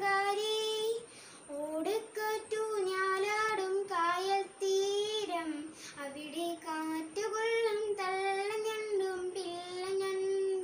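A boy singing a song alone without accompaniment, in phrases of long held notes with short breaths between them.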